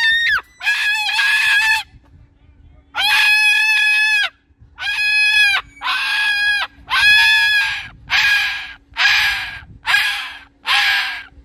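Moluccan cockatoo calling loudly: a run of about ten long, steady-pitched calls, the later ones shorter and closer together.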